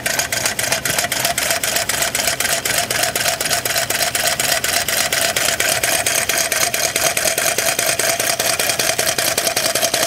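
Homemade soda-can Stirling engine running on its own heat, its crank and flywheel linkage clicking rapidly and evenly.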